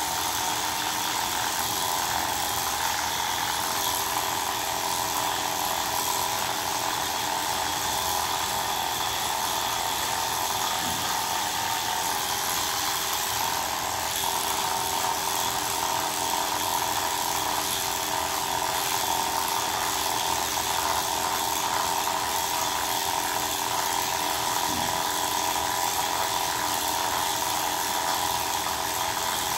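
Electric pet hair clippers running with a steady buzzing hum as they shave a Persian cat's long fur.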